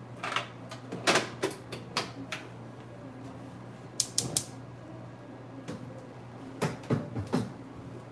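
Kitchen handling noises: scattered knocks and clicks of containers and cookware being picked up and set down, with three quick sharp clicks about four seconds in, over a steady low hum.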